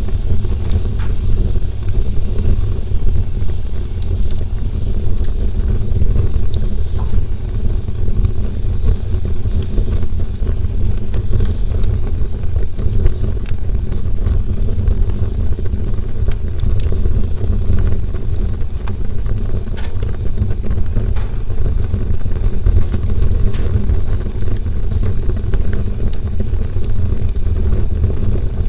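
Campfire burning: a steady low rumble of flames with scattered sharp crackles and pops.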